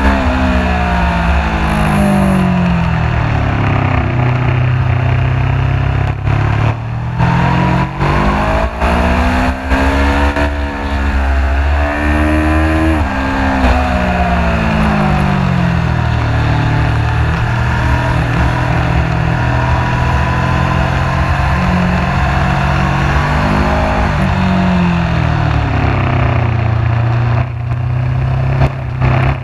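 Sportbike engine heard from the rider's seat at track speed, over a steady rush of wind: the engine's pitch climbs as it accelerates out of corners, drops as it slows for the next bend, and holds steady on the straight between.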